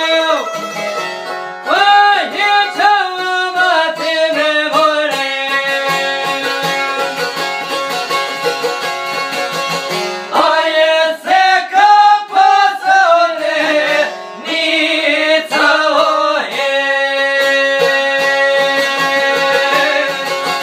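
A man singing an Albanian folk song with bending, ornamented phrases, accompanied by two long-necked plucked lutes that keep up a steady strummed drone. The sung phrases come and go, leaving the lutes playing alone between them.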